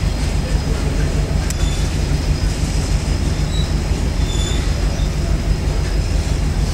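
Passenger train running over the rails, heard from an open coach door: a steady rumble of wheels on track. A single sharp click comes about a second and a half in, and brief faint wheel squeals come around three and a half and four and a half seconds in.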